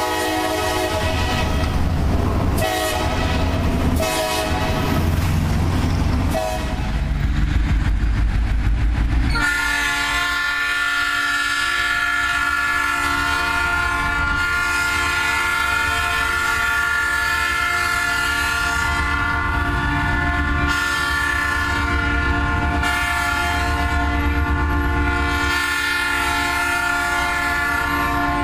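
Diesel locomotive's multi-chime air horn sounding a chord, with brief breaks and a low rumble under it for the first nine seconds, then held in one long steady blast to the end.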